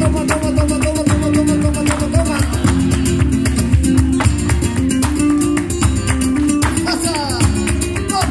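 Live flamenco in the alegrías style: Spanish guitar with cajón and rhythmic handclaps, and a voice singing a long held, wavering line for the first couple of seconds and again near the end.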